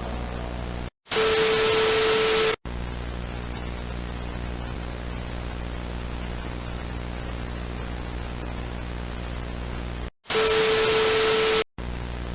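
Steady broadcast static with a low hum. It is broken twice by a loud blast of white-noise static carrying a steady mid-pitched tone, each about a second and a half long, with an abrupt cut to silence just before and after each blast.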